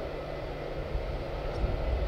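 Steady distant hum of a parked Boeing 787 jet airliner and apron equipment, with a faint high tone over it and an uneven low rumble.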